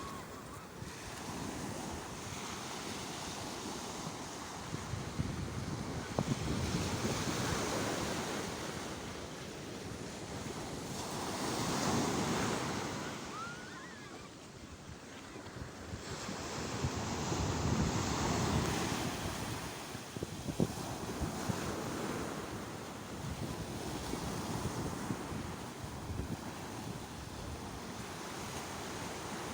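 Sea waves breaking and washing in, the surf noise swelling and ebbing every several seconds, with wind buffeting the microphone.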